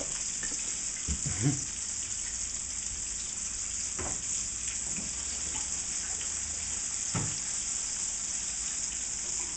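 Breaded chicken deep-frying in hot oil, a steady sizzle, with a few light knocks and clinks of utensils about a second, four seconds and seven seconds in.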